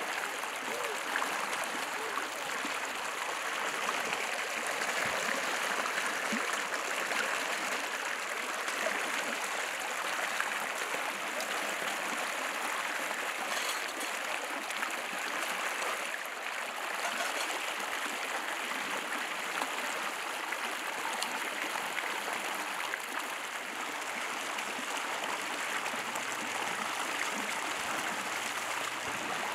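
Fast-flowing river rushing and splashing over rocks at the bank, a steady noise.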